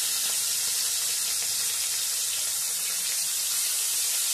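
Whole khoira fish frying in smoking-hot mustard oil in a wok: a steady, even sizzle.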